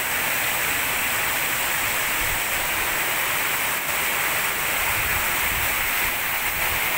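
Fast-flowing river water rushing, a steady even noise, with a couple of faint low rumbles midway.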